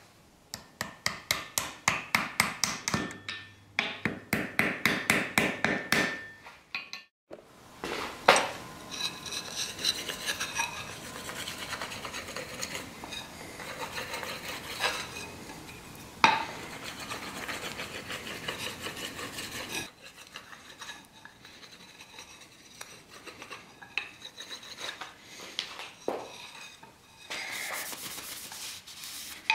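A small steel hammer tapping in a quick run of light, ringing strikes on a small ball peen hammer head, seating it onto its wooden handle. This is followed by a few single knocks of the handle on the steel anvil, and a cloth rubbing over the handle near the end.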